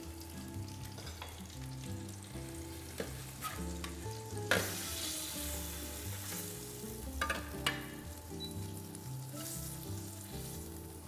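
Black tiger prawns sizzling in hot melted butter in a metal pan, with metal tongs clicking against the pan several times as the prawns are picked out.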